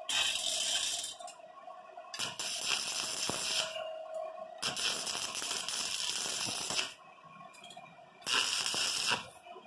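Electric arc welding a steel handle onto a perforated washing-machine drum: the arc crackles and sizzles in four short bursts of about one to two seconds each, with brief pauses between the welds.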